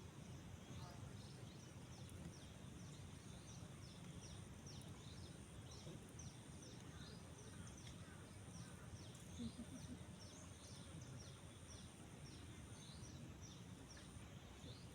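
Faint outdoor ambience: small birds give many short, quickly falling chirps over and over. Beneath them run a steady thin high hum and a low rumbling haze.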